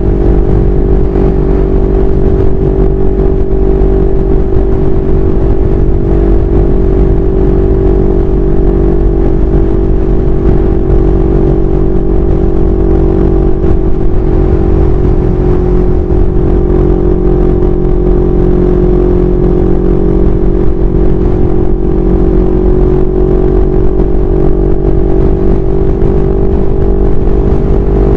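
CFMoto 400NK's parallel-twin engine running at steady cruising speed on the open road. The engine note sags slightly through the middle and rises again near the end. Strong wind buffets the microphone underneath.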